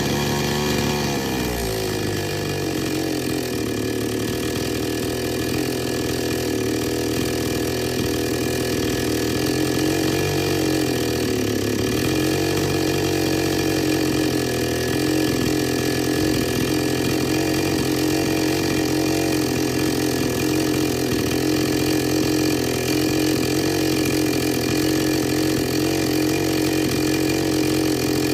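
Petrol two-stroke chainsaw engine running: the revs fall from a fast run to a steady idle over the first two seconds, sag briefly once near the middle, then idle evenly.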